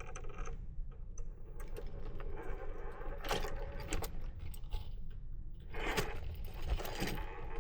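RC4WD Blazer scale rock crawler working its way over rock: the small electric motor and gears whir while the tires and plastic body scrape and click against the stone, with a cluster of sharper clicks about three to four seconds in and again near six to seven seconds.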